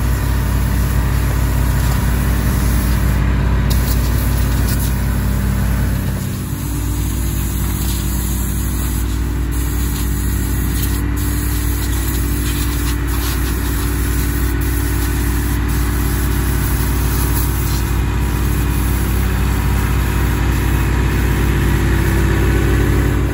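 Fendt 314 Vario tractor's four-cylinder diesel running steadily under load while driving a front-mounted power harrow through the soil.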